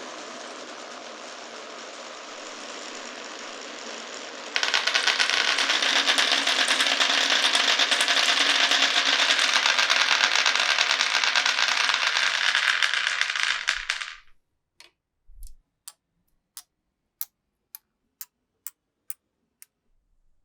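Glass marbles rolling along a wooden marble run: a steady rolling rattle that turns suddenly louder, with dense rapid clicking, about four seconds in, then stops abruptly. After it, a marble bounces on a hard surface, the clicks coming quicker and quicker until it comes to rest.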